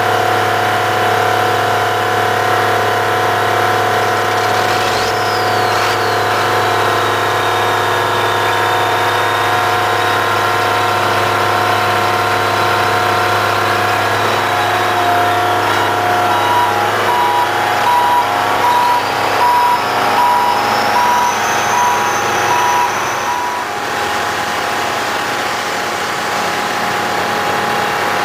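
Rough-terrain crane's diesel engine running steadily, with a high hydraulic whine as the boom is worked. About two-thirds of the way through the engine grows louder and a whine rises in pitch for several seconds, with a repeating beep alongside.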